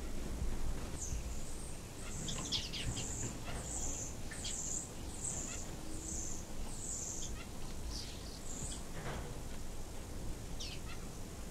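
Small cage or aviary birds chirping: a run of short, very high-pitched chirps, about two a second, with a few falling notes mixed in, stopping about nine seconds in. A low background rumble runs underneath.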